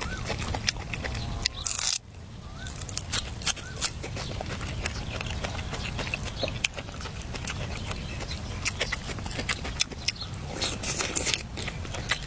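Eating close to the microphone: crunchy chewing and biting, with many small sharp clicks, over a steady low rumble.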